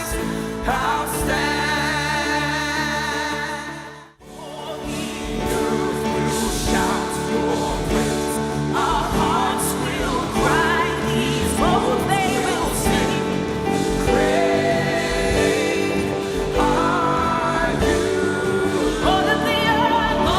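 Worship song performed by singers with a band. About four seconds in the sound drops out briefly, then the music starts again.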